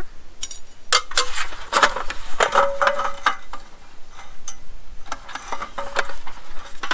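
Aluminum slats and parts of a GSI Outdoors Macro folding camp table clattering and clinking together as the roll-up tabletop is handled and unfolded: a run of irregular light knocks with a few short metallic rings.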